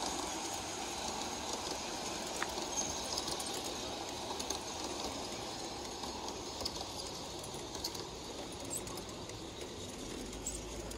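Model of a Tobu 100 series Spacia train running along its track, a steady rumble of wheels on rail that fades slightly as the train moves away.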